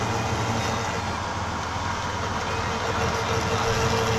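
Lathe running steadily, its motor humming with a constant mid-pitched whine.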